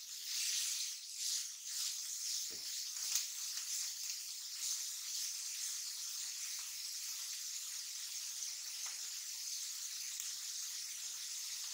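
Shredded cabbage, carrot and capsicum sizzling in oil in a non-stick pan, a steady high hiss. A plastic spatula stirs and scrapes through the vegetables in the first few seconds.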